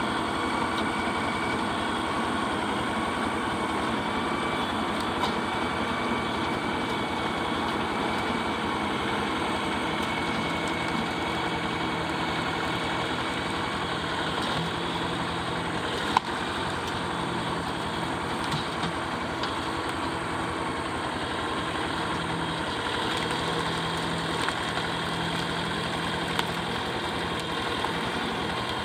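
Tractor engine running steadily, with a sharp click a little past halfway through.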